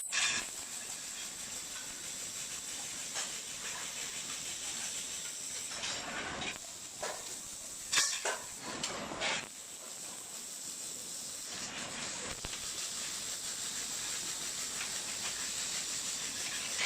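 Steady high hiss of a cold metal transfer MIG welding arc laying a weld on aluminium pipe, with a few sudden louder crackles, the sharpest about eight seconds in.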